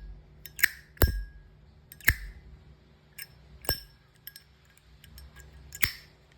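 Replica Zippo-style lighter's hinged metal lid being flipped open and snapped shut several times. Each flip gives a sharp metallic click with a brief ring, with softer clicks in between.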